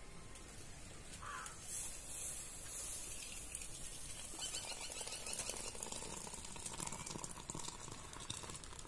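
Faint sloshing and pouring of thick, hot dal as an aluminium pot is tipped into a steel bowl.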